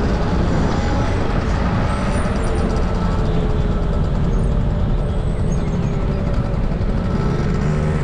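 Motorcycle ride heard from the bike: a steady rush of wind over the microphone with the engine running beneath it. The engine's pitch rises near the end.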